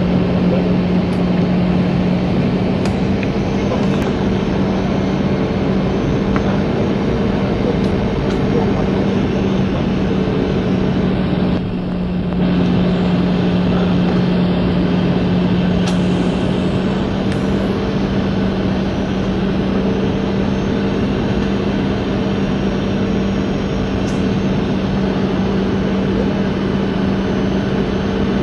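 Airliner cabin noise on the landing approach: the steady roar of the jet engines and rushing air, with a steady low hum under it. The noise dips briefly a little before halfway through.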